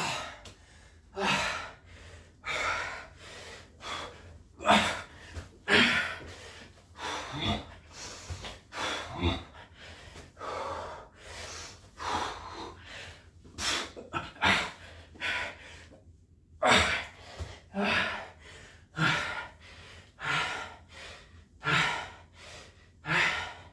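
A man breathing hard from exertion during burpees: heavy, rapid gasps in and out about once a second, with a brief break about two-thirds of the way through.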